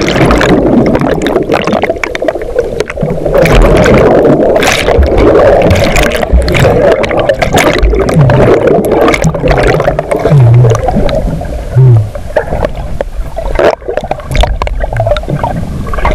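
Sea water heard through a submerged action camera: loud, muffled churning and gurgling, broken by frequent sharp knocks against the housing.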